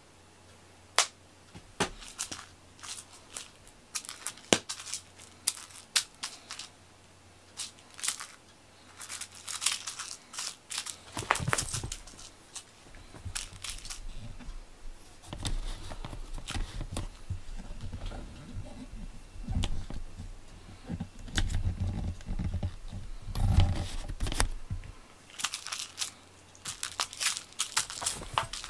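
Cats playing with a string teaser toy: sharp clicks and ticks at first, then flurries of rustling and scuffing on a quilted blanket with dull thumps of paws and bodies landing as they pounce.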